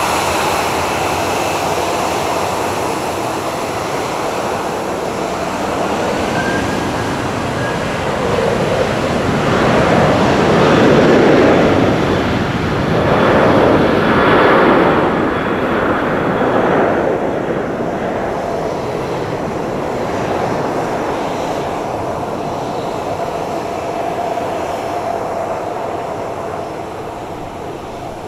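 Boeing 737-800's twin CFM56 jet engines at taxi power as the airliner taxis and turns away, a steady rumble with a thin whine above it. The rumble swells in a few surges to its loudest about halfway through as the exhaust points toward the listener, then fades.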